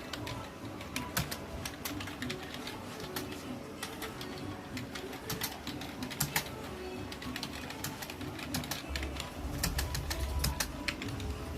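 Computer keyboard keys clicking in fast, uneven runs of keystrokes, with music playing underneath.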